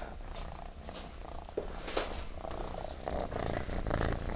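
Tabby cat purring right up against the microphone, a steady low pulsing rumble, with two short sharp sounds about one and a half and two seconds in.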